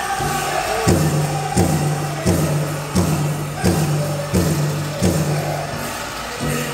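Powwow drum and singers: men singing, then about a second in a big drum comes in with a steady, even beat of roughly one and a half strokes a second, each stroke leaving a low booming ring.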